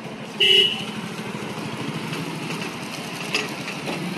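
Motorcycle engines running as motorcycles ride past close by, the engine noise growing louder near the end. A short, loud horn beep sounds about half a second in.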